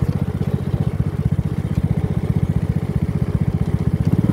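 Small motorbike engine running at a steady speed with an even, rapid pulsing beat.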